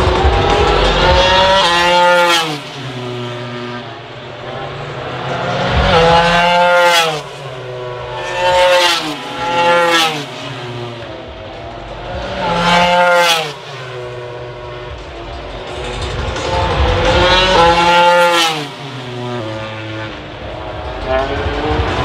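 1000cc four-cylinder MotoGP racing motorcycles passing one after another at full throttle, several separate flybys. Each engine's pitch climbs as it accelerates and drops sharply as the bike goes past.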